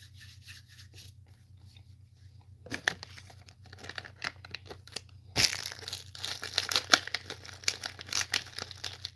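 Candy wrapper crinkling and tearing as it is handled close to the microphone. It starts about three seconds in and grows busier and louder from about halfway.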